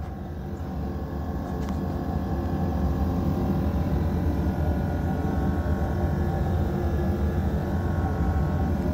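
Detroit Diesel Series 60 inline-six diesel in an MCI coach running steadily while misfiring, firing on only three of its six cylinders because of a fault in the external engine wiring harness.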